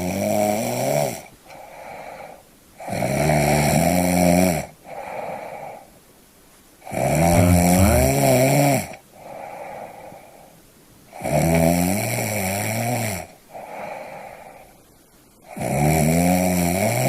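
A person snoring in a steady rhythm: a loud, pitched snore roughly every four seconds, each followed by a shorter, quieter sound.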